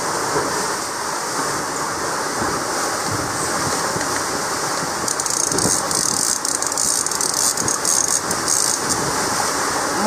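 Steady rush of wind and sea water past a fast-moving sailboat. From about halfway through, a run of fast ratchet clicking comes from a Penn Senator trolling reel while a fish is being reeled in.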